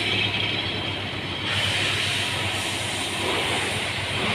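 Car engine running with a steady hissing mechanical noise and a faint low hum; the engine will not rev and shakes, with fuel-pressure fault codes P0190 and P1086, and the noise is blamed on the fuel pump.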